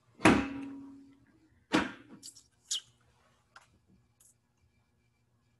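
A loud sharp knock with a short ringing tail, then a second knock about a second and a half later, followed by a few lighter clicks and taps.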